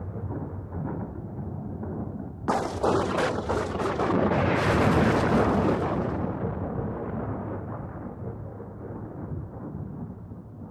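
Deep rumbling, then a sudden loud crash about two and a half seconds in, with a few sharp cracks, that slowly dies away into rumbling again.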